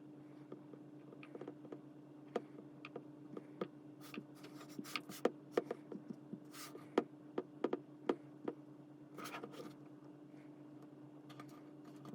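An irregular run of light clicks and taps from hands working on a phone and its small parts, densest in the middle of the clip, over a steady low electrical hum.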